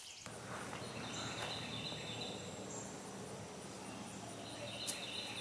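Outdoor background noise: a steady low hum under high, steady, unbroken tones, with a single sharp click about five seconds in.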